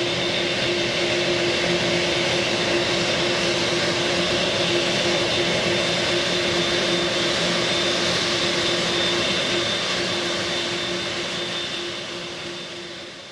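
Boeing 747-8's four GEnx-2B turbofans running at low taxi power as the jumbo jet rolls slowly toward the listener: a steady jet whine over a rushing noise, with a constant mid-pitched hum and a thin high tone. It fades out near the end.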